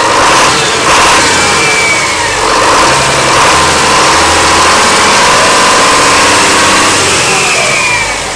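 Yanmar 6CXM-GTE2 turbocharged six-cylinder marine diesel running loudly, its throttle worked by hand at the injection pump linkage, with a whine that rises and falls twice. The engine is the one that bogs down in gear with no throttle response despite a new injection pump, filters and injectors.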